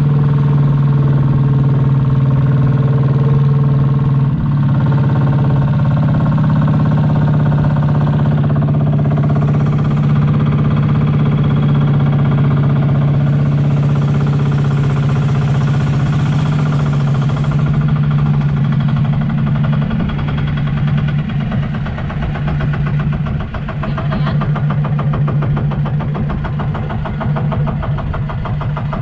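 A small motorised river boat's engine runs loud and steady while the boat travels at speed. In the last third it becomes more uneven, with its individual firing beats showing as a chugging.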